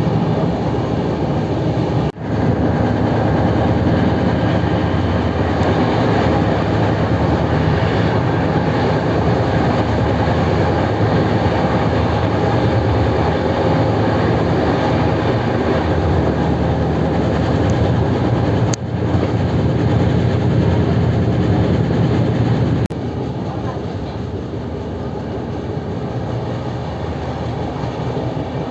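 Express train running at speed on an Indian line: the steady rolling noise of wheels on rail from its LHB coaches. It breaks off abruptly about two seconds in and again near 19 s, and is somewhat quieter from about 23 s.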